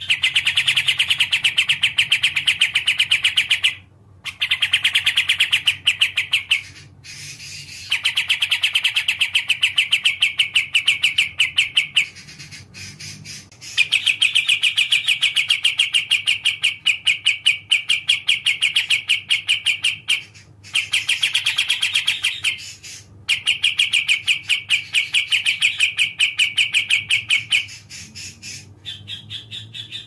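Kapas tembak, a bulbul, singing a rapid, evenly pulsed chattering trill in phrases a few seconds long, with brief pauses between them.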